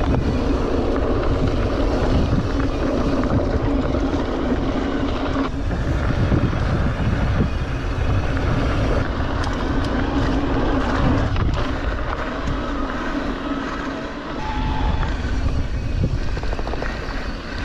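Mountain bike rolling down a dirt trail: wind buffets the microphone and the bike rattles over rough ground. A steady squeal from the brakes runs through the first few seconds, and a shorter one comes later.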